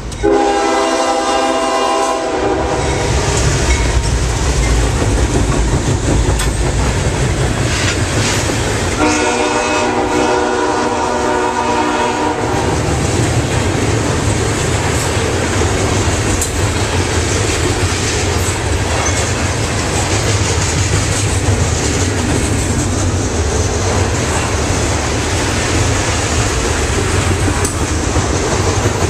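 Two CSX GE ES44DC diesel locomotives sound their air horn twice as they pass: a blast of about two seconds at the start and a longer one of about three seconds some nine seconds in, over a deep engine rumble. After that comes the steady rumble and clickety-clack of the trash container cars rolling by on the rails.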